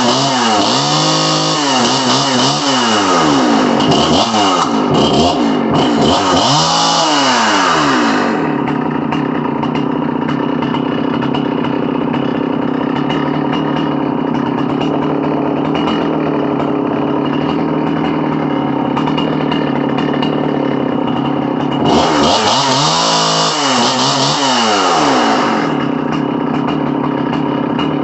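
Jonsered 625 two-stroke chainsaw being revved in a series of quick throttle blips, then idling steadily, then blipped a few more times about 22 seconds in before settling back to idle. It runs cleanly, a good-running saw.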